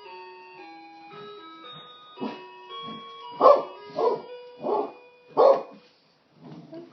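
A musical electronic doorbell chime plays a tune of steady stepped notes while a dog barks along with it. There are a few short barks from about two seconds in, the loudest four coming just under a second apart.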